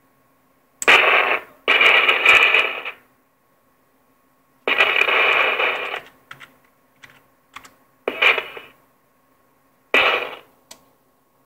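CB radio speaker giving several sudden bursts of static crackle and hiss, each up to about a second long, with short clicks between them and quiet gaps. The crackles are interference from lightning strikes in a thunderstorm overhead.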